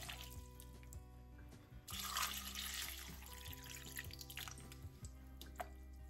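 Soft background music with long held notes, over water poured from a measuring cup into a slow cooker crock of chopped potatoes. The pouring swells briefly about two seconds in.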